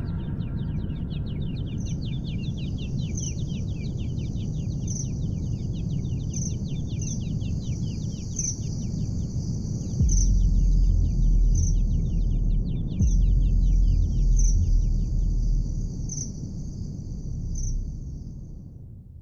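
Nature ambience of rapid chirping and a steady high insect-like trill with regular pulses, over a low rumble that grows louder about halfway through. It all fades out at the end.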